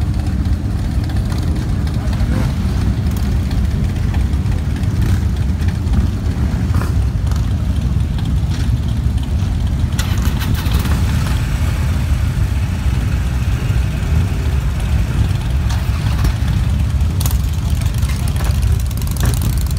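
A large pack of cruiser and touring motorcycles idling together, a steady low rumble of many engines.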